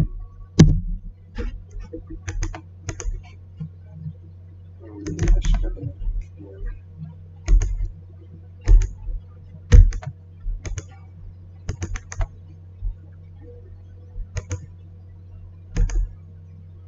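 Computer keyboard keys and mouse clicks, irregular, singly or a few in quick succession with short pauses, over a steady low hum.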